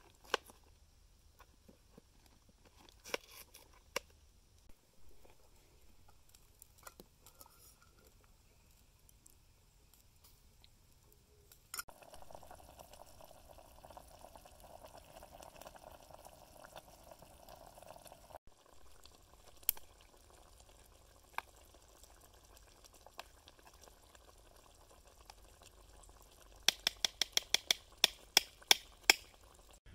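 Faint scraping and occasional clicks of a hand-held potato peeler on raw potatoes, then a pot of water boiling and steaming on a grill over a campfire with a steady hiss. Near the end a metal spoon knocks sharply against a small metal pot about a dozen times in quick succession, mashing the potatoes.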